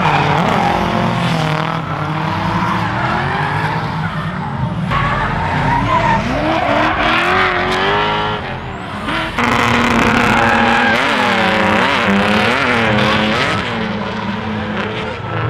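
Drift cars running hard through a corner, engine pitch rising and falling as the throttle is worked, over tyres skidding on the track. Near the end the revs drop and pick up again several times in quick succession.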